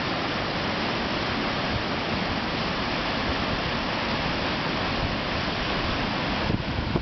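Steady rush of the flooded Stillaguamish River's fast, high water. Near the end, wind starts buffeting the microphone with uneven low rumbles.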